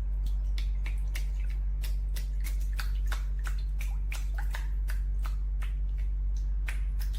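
Quick, irregular clicking and ticking, several clicks a second, over a steady deep hum.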